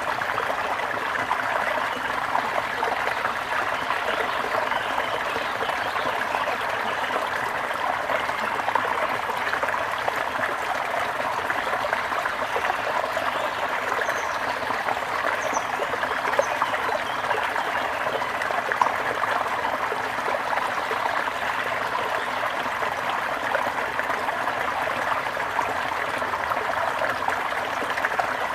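Gentle river flowing steadily, a constant rushing and trickling of water, with a few faint high bird chirps about halfway through.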